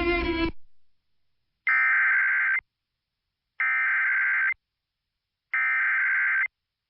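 The EAS SAME digital header of a NOAA Weather Radio alert: three identical screeching data-tone bursts, each about a second long with a second of silence between. A held musical chord fades out just before the first burst.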